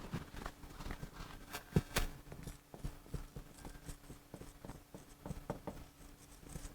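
Faint, irregular small taps and clicks, several a second, like a pen writing, over a faint steady hum.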